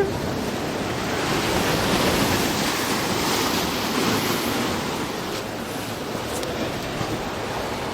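Ocean surf breaking and washing on the shore, a steady rush that swells a couple of seconds in and then eases off.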